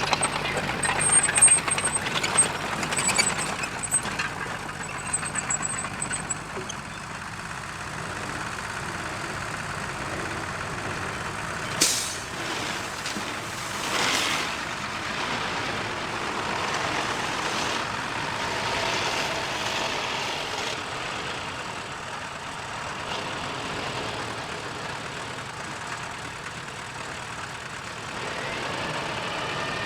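Heavy earth-moving machinery at work: a truck or bulldozer running, with rattling and clanking over the first several seconds, then steadier running broken by two short hissing bursts about 12 and 14 seconds in.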